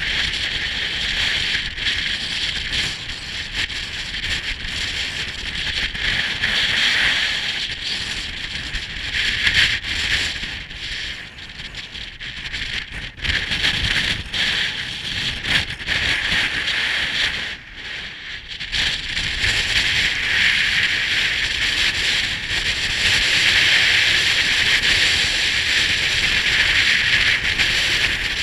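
Strong gusting wind of about 46 mph buffeting the microphone, a loud steady hiss over a low rumble. It eases briefly a couple of times and blows harder and steadier through the last third.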